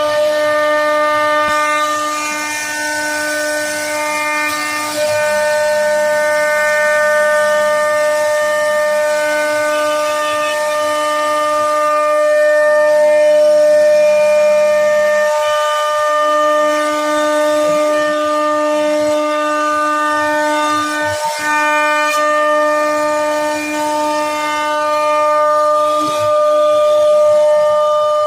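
CNC wood router running and carving: a steady high-pitched whine with several steady overtones, and a lower tone under it that cuts out and comes back a few times.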